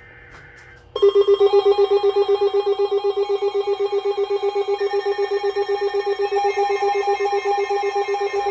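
Emergency alert attention tone. It is an electronic tone that comes in suddenly about a second in and pulses rapidly, about eight times a second, with a second, warbling tone above it.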